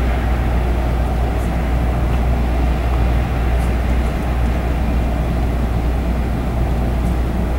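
Steady low rumble of the BC Ferries Queen of Cowichan's engines as the ferry moves under way.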